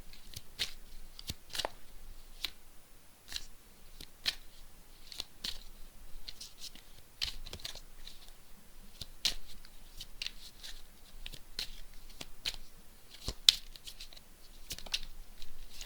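A deck of cards being shuffled by hand: a run of light, irregular card slaps and flicks, with one sharper snap late on.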